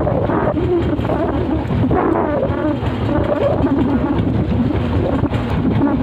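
A fishing boat's engine running steadily, with wind buffeting the microphone.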